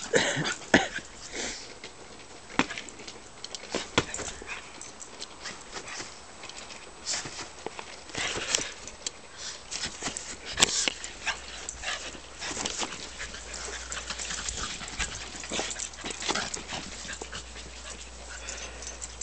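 A small long-haired dog panting as it runs about, with many short, irregular clicks and scuffs.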